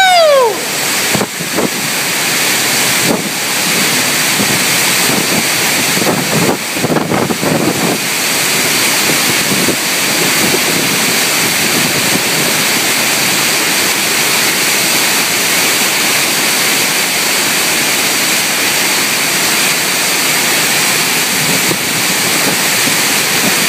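Hurricane-force wind and heavy rain make a loud, steady rush, with gusts buffeting the microphone. A short rising-and-falling tone sounds at the very start.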